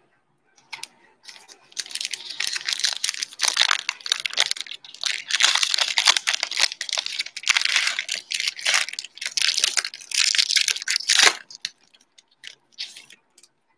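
Foil Panini Mosaic basketball card pack being torn open and its wrapper crinkled by hand, a run of crackling rustles lasting several seconds, then a few light ticks near the end.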